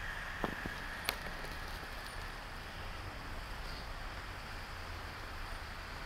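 Cars moving slowly along a slush-covered road in falling snow: a steady hiss of tyres through slush over a low engine hum, a passing car's noise fading over the first two seconds, with two sharp clicks in the first second or so.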